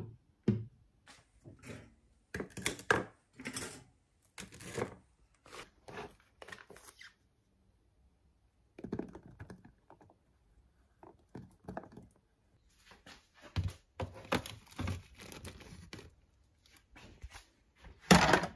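Kitchen handling noises while breakfast is made: a string of short clunks, knocks and plastic rustles as a mug, plastic food tubs and a plate are handled and set down, with a pause about halfway through and a louder knock near the end.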